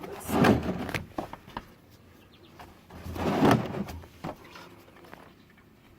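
Two short scraping handling noises about three seconds apart, with light clicks between them, as tools and the plastic oil drain container are moved about under the car.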